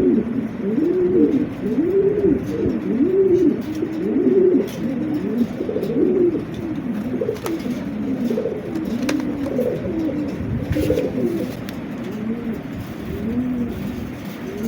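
Several domestic pigeons cooing nonstop, their low coos rising and falling in pitch and overlapping one another.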